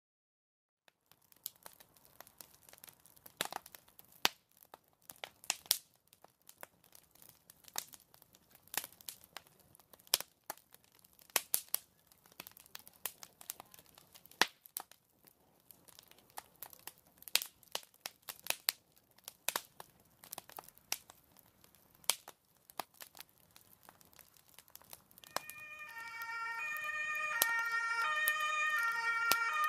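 Fire crackling, with irregular sharp snaps and pops. About 25 seconds in, a fire engine's siren fades in, alternating between pitches, and grows louder as it approaches.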